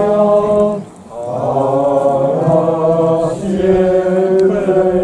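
Men's voices singing a slow liturgical chant in long held notes, with a short break for breath about a second in.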